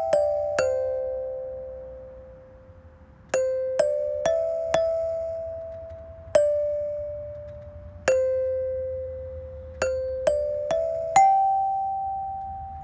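Playground chimes, a metallophone of metal bars over tube resonators, struck one note at a time with a rubber mallet to play a slow tune. Each note rings on and fades, with quicker runs of three or four notes a little past halfway and again near the end.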